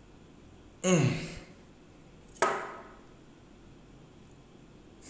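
A man sighs about a second in, the pitch falling as it trails off. About a second and a half later comes a second short sound that starts abruptly and fades.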